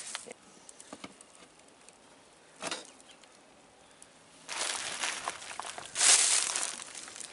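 Black plastic sheeting crinkling and rustling with a few faint clicks: a short rustle nearly three seconds in, then two longer bursts, the second and louder one about six seconds in.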